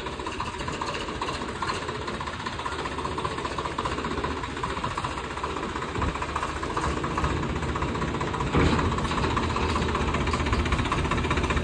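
Tractor diesel engine running with a steady, fast clatter, getting louder about three-quarters of the way through.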